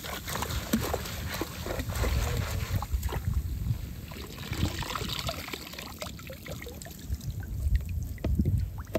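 Water trickling and splashing in irregular bursts from a mesh trap net holding live prawns and a crab as it is handled at the surface, over a low rumble.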